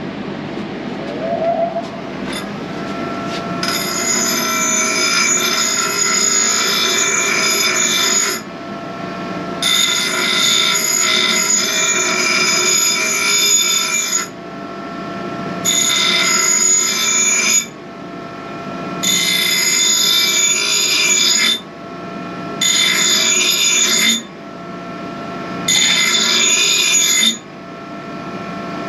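Arc welder laying test beads joining two pieces of steel car-frame rail, in six runs of a few seconds each that cut off sharply and restart after about a second's pause.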